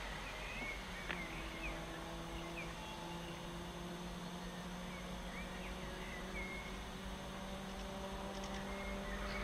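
Distant diesel locomotive engine running, heard as a low steady hum with a few held tones that shift a little in pitch. Birds chirp now and then over it.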